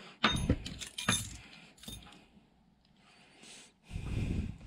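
Small metal parts of a toy construction set, perforated steel strips, nuts and screws, clinking and jingling as they are picked through by hand. A few sharp clinks come in the first two seconds, then a dull handling rustle near the end.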